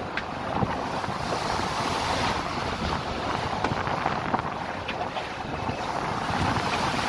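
Rough sea churning and splashing white water between the sailboat's hull and a workboat alongside, with wind buffeting the microphone.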